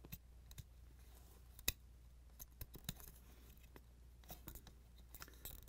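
Faint, scattered clicks and ticks of a small plastic refrigerator compressor start device being handled and fitted in the fingers, with one sharper click just under two seconds in, over near silence.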